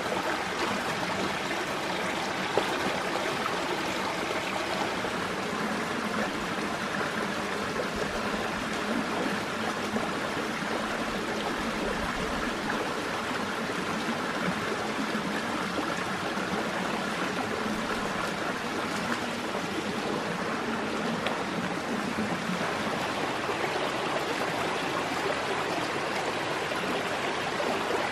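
Forest stream running steadily, a continuous rush and trickle of flowing water.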